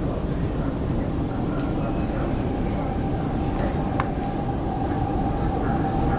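CRRC Qingdao Sifang EMU running on the rails with a steady low rumble, its IGBT-VVVF traction drive giving a thin whine that rises slightly in pitch as the train picks up speed. A single sharp click about four seconds in.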